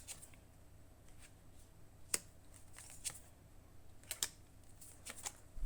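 Tarot cards being handled and shuffled: faint rustling with a few scattered sharp card snaps, the clearest about two seconds in and again around four seconds in.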